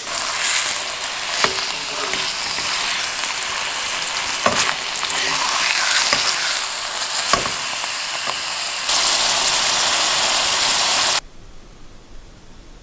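Horse steaks frying in hot olive oil: a loud, steady sizzle with a few sharp knocks, cutting off suddenly near the end to faint hiss.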